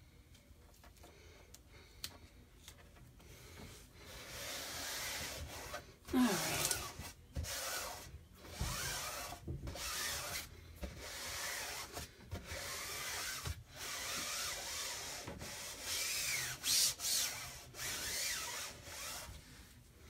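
Hands rubbing a silkscreen transfer flat against a glass window pane, pressing it down so it sticks: a long run of repeated swishing strokes that starts about four seconds in and stops just before the end.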